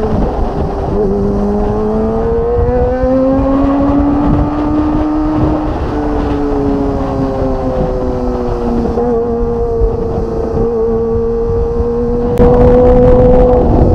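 Kawasaki ZX25R's inline four-cylinder engine running through an aftermarket Magna exhaust under way, its revs rising over the first few seconds, dropping back about six seconds in, then holding fairly steady. It gets noticeably louder about a second and a half before the end.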